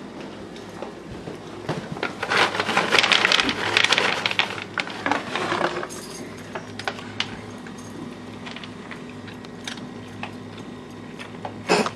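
Rustling and rattling of packaging being handled close by, loudest for a few seconds starting about two seconds in, over a low steady hum. A single sharp knock comes near the end.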